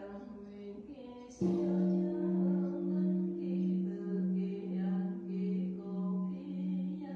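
A great bronze Buddhist temple bell (đại hồng chung) is struck once about a second and a half in. Its deep hum then rings on, pulsing steadily in loudness, under a chanting voice that is also heard before the strike.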